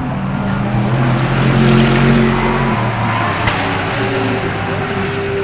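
Race cars passing by at speed, their engines swelling to a peak about two seconds in and then easing off.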